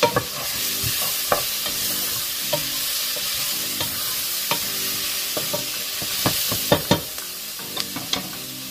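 Sliced bell peppers and red onion sizzling as they sauté in a pot, stirred with a wooden spatula that scrapes and knocks against the pot. The knocks come irregularly, several close together around six to seven seconds in.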